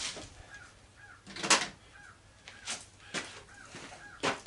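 Hand tools on the metal antenna rotator clamp: a nut driver working the clamp nuts, with a handful of short, sharp metal clicks and knocks. The loudest comes about a second and a half in.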